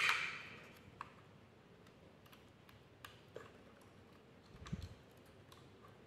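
Faint scattered clicks and light taps of hands handling a plastic toy train body and its wire leads, with one soft thump late on.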